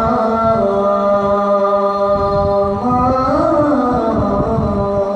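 A man's voice singing a nasheed in long held notes, sliding to a new pitch a little after three seconds in.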